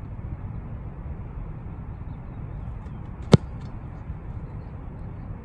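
A single sharp thump of a football kicked off a field-goal holder, the foot striking the ball about three seconds in, over a steady low rumble.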